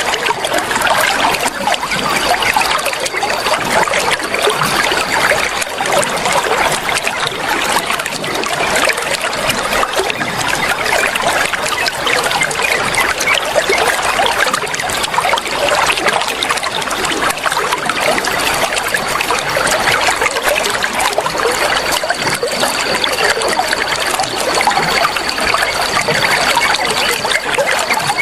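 Flowing water trickling steadily, an even, unbroken splashing rush.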